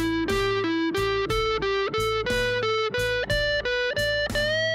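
Electric guitar, a Harley Benton Fusion II HSH Pro fitted with Seymour Duncan mini-humbuckers, played through a Boss Katana amp head: a run of single picked notes, about four a second, climbing in pitch and ending on a held note near the end.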